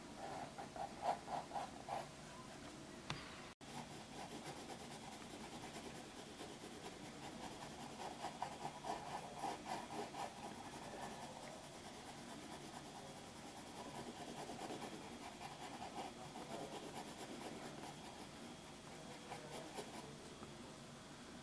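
Wooden graphite pencil scratching across paper in quick repeated shading strokes, with a brief break about three and a half seconds in.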